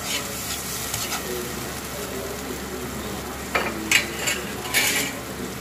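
Soy-sauce and oyster-sauce mixture with browned garlic and onion sizzling steadily in a frying pan on a gas burner. A few short, louder sounds come about three and a half to five seconds in.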